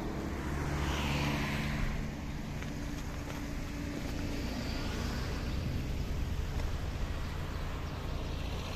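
Road traffic: a motor vehicle's engine running close by as a steady low hum, with the hiss of a car passing about a second in.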